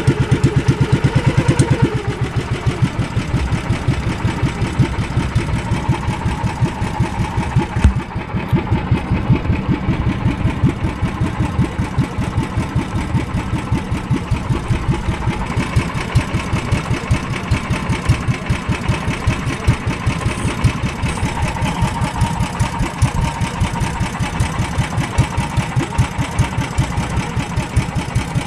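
Boat engine running steadily with a rapid, even beat; it eases back a little about two seconds in and then holds steady.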